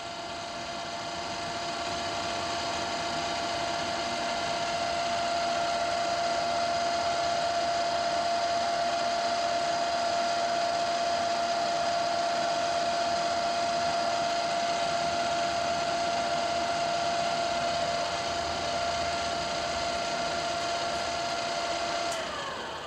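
1977 Ikeda RM-1375 radial arm drill press running its spindle at 1,000 RPM, a steady mechanical whine over a constant whirr from the spindle drive. Near the end the whine falls in pitch as the spindle slows down.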